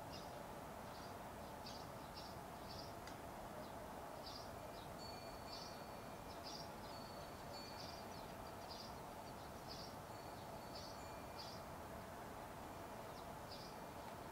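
Faint outdoor ambience: a small bird chirping again and again, roughly one short high chirp a second, over a steady background hum.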